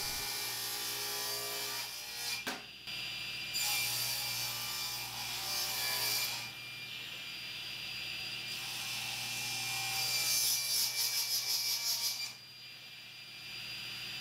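Table saw running with a steady hum while its blade cuts a padauk board twice: once against the rip fence and once on a crosscut sled. Each cut brings a few seconds of loud, high hiss of blade in hardwood.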